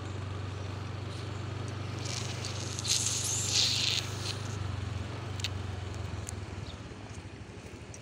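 Steady low engine hum with road noise from a slow-moving vehicle, dying away a little past halfway as it eases off. A brief hissing rush, loudest around three seconds in.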